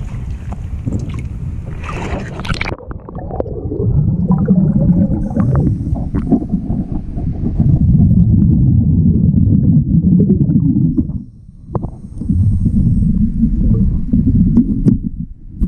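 Water splashing and sloshing at the surface for the first few seconds. Then the sound goes under water: a loud, muffled low rumbling and gurgling of water around the camera.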